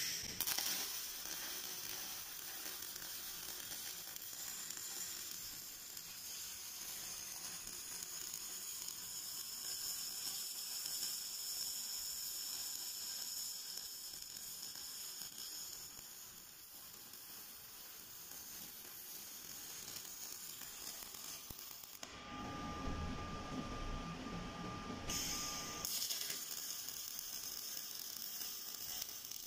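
Robotic MIG welding arc sizzling steadily as the torch runs along a tube-to-plate seam. About three quarters of the way through, the sizzle drops out for a few seconds, replaced by a lower rumble with a faint steady tone, then the sizzle resumes.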